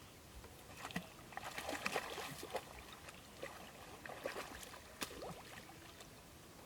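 Shallow water splashing and sloshing in irregular bursts, as if stirred by hands or feet, from about a second in until past the middle.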